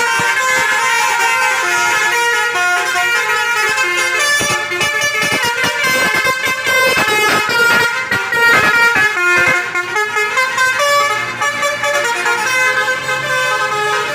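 Multi-tone 'telolet' bus horns playing a tune of held notes that step from pitch to pitch. A run of rapid sharp knocks sounds through the middle.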